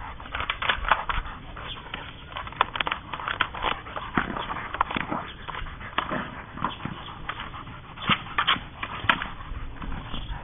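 A Rottweiler panting while gnawing at a red 'indestructible' ball. Its teeth make many sharp, irregular clicks and scrapes on the ball.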